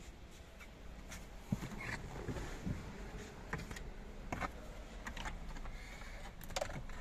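Scattered plastic clicks and knocks as a Land Cruiser 200's new centre-console side trim panel is handled and offered up into place, with sharper knocks about a second and a half in and near the end.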